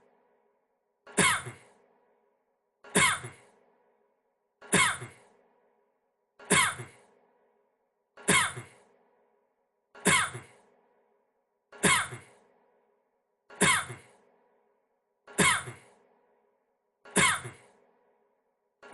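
A man's short cough, the same clip repeating identically about every 1.8 seconds, about ten times.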